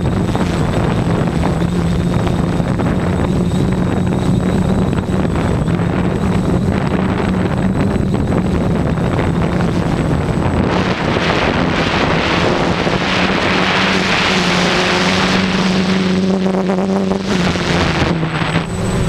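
Quadcopter's electric motors and propellers humming steadily in flight, heard from the camera on board. From about ten seconds in, a rush of wind over the microphone rises over the hum and drops away again shortly before the end.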